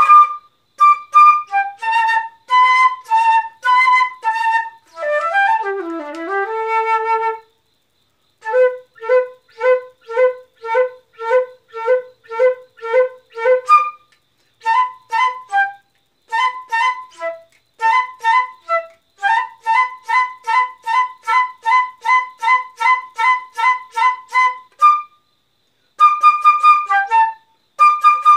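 Solo flute playing a melody in short, detached notes, with runs of quickly repeated notes at about two a second. There are brief breaks in the playing around 8 seconds in and again near the end.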